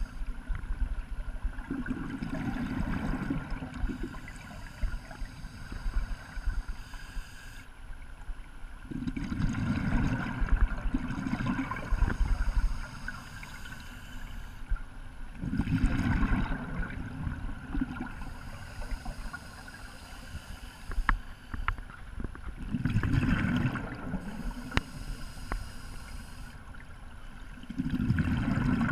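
Scuba diver breathing underwater: a loud, low bubbling rush of exhaled air from the regulator, five times, about six or seven seconds apart, with quieter water noise in between.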